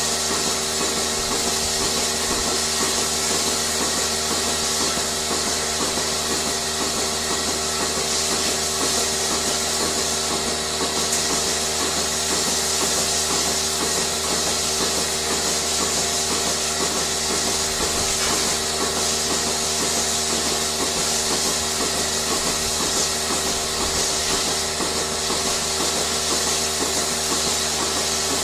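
Machinery running steadily with a hum and a hiss, pulsing in a regular rhythm of about two beats a second.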